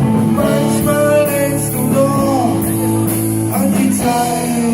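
Music: a song with a singing voice over instruments, a guitar among them.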